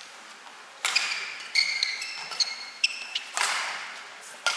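A badminton rally: sharp racket strikes on the shuttlecock, roughly one every second, with shoes squeaking briefly on the court floor between them, in a large echoing hall.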